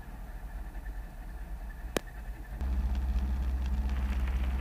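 Robinson R22 helicopter engine running at idle on the ground, heard from inside the cockpit as a steady low hum. There is a single sharp click about two seconds in, and about half a second later the engine sound steps up and grows louder.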